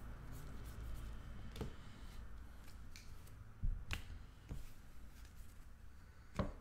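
Baseball cards being handled by hand: a stack flipped through and cards snapped against each other, giving a few sharp clicks, the loudest about four seconds in and just before the end.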